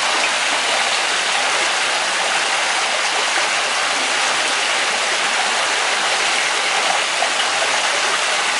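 Water from a concrete rock waterfall pouring steadily into a swimming pool, a constant even rush.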